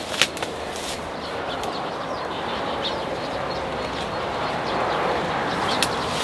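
Mulberry tree branches and leaves rustling steadily as fruit is picked, with a sharp snap just after the start and another near the end.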